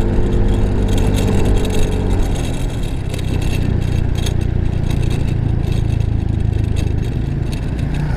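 Yamaha Mio i 125 scooter engine running under way, a steady hum that eases slightly down in pitch over the first two seconds, then blends into a rush of road and wind noise on the microphone.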